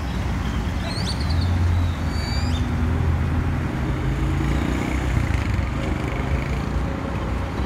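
Street traffic: a motor vehicle's engine running as it passes close by, loudest between about one and three seconds in, over steady traffic noise. A few short high chirps sound about one and two and a half seconds in.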